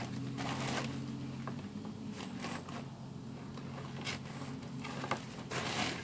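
Scrapes and knocks of a hydraulic bottle jack being handled under a concrete slab, a few short strokes with a longer scrape near the end. A low steady hum underneath fades out about a second and a half in.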